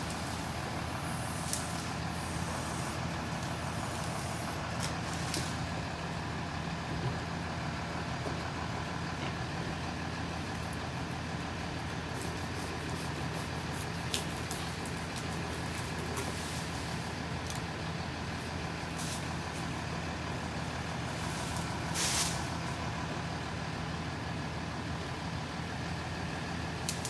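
Heavy diesel engine running steadily with a low, even drone, with a few sharp clicks and a short hiss about 22 seconds in.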